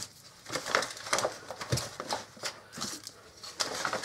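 Foil-wrapped baked potatoes being packed into a plastic freezer bag: crinkling foil and rustling plastic in short bursts, with a soft thump a little under two seconds in as a potato is set down.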